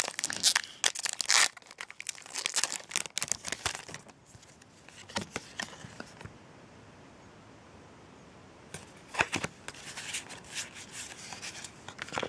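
Foil wrapper of a Pokémon Primal Clash booster pack being torn open and crinkled by hand, a dense crackling over the first four seconds. Quieter after, with light rustling of the cards being handled near the end.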